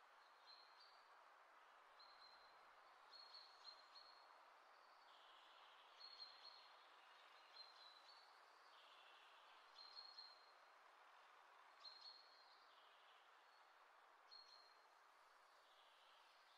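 Near silence: a faint steady hiss with short, high chirps repeating about every two seconds.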